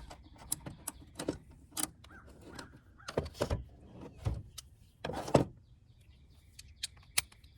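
Cordless impact tool running 10mm bolts down in short bursts, with clicks and knocks of the tool and socket against the battery bracket in between.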